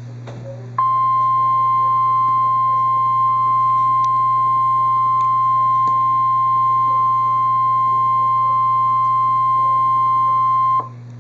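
NOAA Weather Radio 1050 Hz warning alarm tone: one loud, steady, high beep lasting about ten seconds, starting just under a second in and cutting off abruptly near the end, the signal that a warning message (here a tornado warning) follows. A low steady hum runs underneath.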